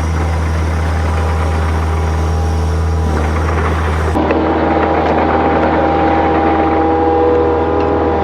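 Engine of earth-moving equipment running steadily with a deep hum; the sound shifts abruptly about four seconds in.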